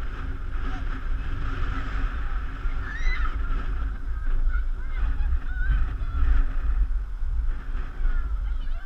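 Wind buffeting the microphone in a windstorm, a steady low rumble, with a faint steady high hum and faint wavering high-pitched calls over it.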